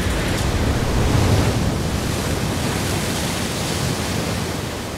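Heavy surf: waves crashing and water rushing, a dense roar with deep rumble that swells about a second in and eases slightly toward the end.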